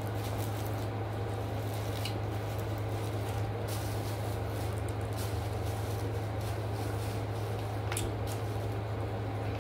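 Steady low hum, with a few light clicks about two seconds in, around four seconds in and near eight seconds in.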